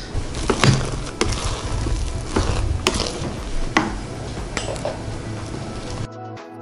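Plastic rice paddle scooping freshly cooked rice out of a rice cooker's inner pot into a bowl: scraping and handling noise with a few sharp clicks and knocks of the paddle against the pot and bowl. It cuts off near the end, leaving background music.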